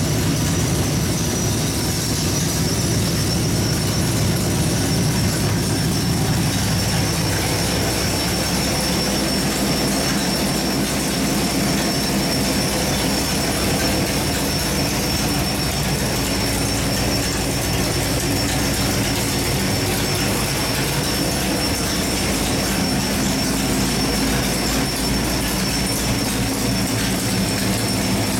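383 cubic-inch small-block Chevy stroker V8 running on an engine dyno, holding a steady speed with no revving up or down. A constant high-pitched whine sits above the engine note.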